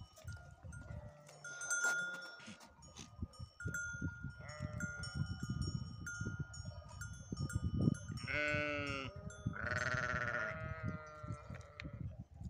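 Sheep and goats of a grazing flock bleating: a short call about four and a half seconds in, then two loud, wavering bleats around eight and ten seconds in. Small livestock bells ring on and off throughout.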